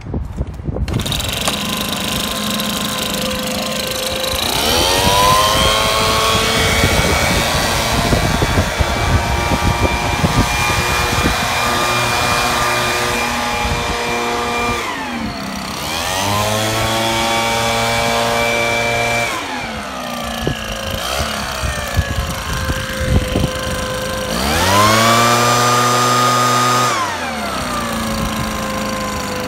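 Hitachi Koki Tanaka THB-2510N handheld blower's small two-stroke engine catching about a second in and idling, then revved up to full throttle three times, the pitch rising, holding high for several seconds (the first time about ten seconds) and falling back to idle each time.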